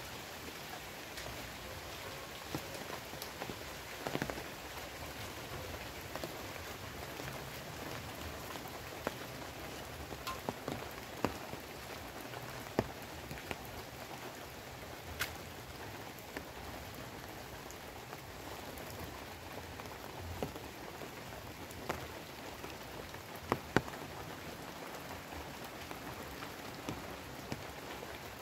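Steady rain falling, an even hiss with sharp ticks of single drops striking close by now and then.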